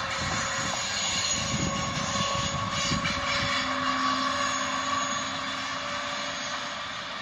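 Electric locomotive 111Eb-002, a Bombardier TRAXX, hauling a double-deck passenger train past at speed: a steady electric whine over the rumble and knock of wheels on rail, easing slightly toward the end as the train moves off.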